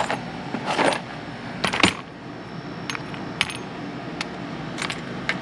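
Screwdriver's steel tip clinking against small metal screws, about ten light, irregular metallic clicks, while the tip is tried for whether its magnet picks the screws up.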